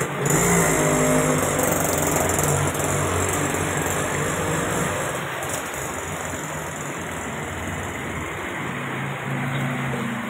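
A motor vehicle's engine running as it drives through floodwater on the road, heard in the first few seconds and again near the end, over a steady rush of flowing water and rain.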